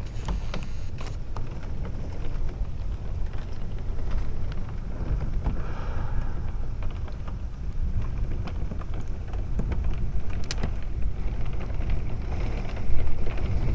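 Thunderstorm wind and heavy rain: gusts buffet the microphone with a steady low rumble while rain ticks and patters throughout, swelling loudest near the end.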